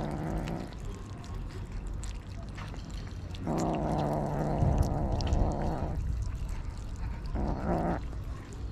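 A cat giving a drawn-out, steady-pitched call three times: briefly at the start, for over two seconds in the middle, and briefly near the end. Small clicks of kittens chewing meat scraps run beneath it.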